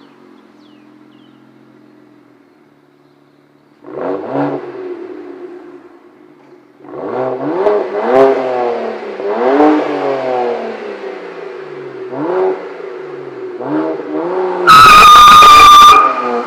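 BMW 335i N54 twin-turbo straight-six idling quietly through an M Performance exhaust, then blipped once and revved repeatedly, each rev rising and falling. Near the end comes a very loud, distorted burst with a high steady tone, lasting about a second and a half.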